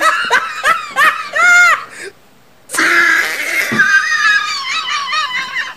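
High-pitched shrieking and squealing laughter from a person, in two bouts with a short pause about two seconds in.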